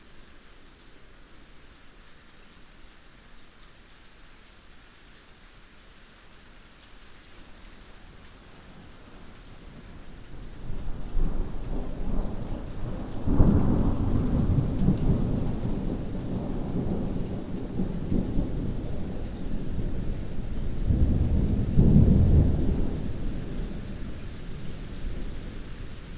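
Steady heavy rain, then from about ten seconds in a long rolling rumble of thunder builds, loudest in two swells around halfway and near the end, before it fades.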